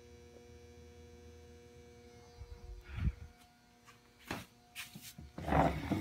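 Steady electrical hum from noisy light fixtures. From about halfway on, knocks and rustling as the phone is handled and swung around, loudest near the end.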